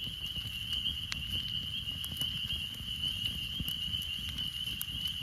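Wood campfire crackling under a grill grate, with scattered sharp pops. Behind it, a steady high-pitched trill from a night chorus of insects runs without a break.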